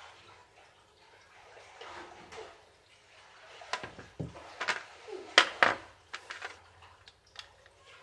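Clicks and knocks of hand tools and washing-machine gearbox parts being handled and set down, a quick run in the second half with the two loudest knocks close together.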